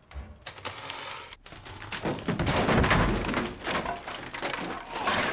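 Film foley of a newsroom: typewriter clacks and desk knocks, turning about two seconds in into a dense, louder run of thumps, cracks and clattering impacts.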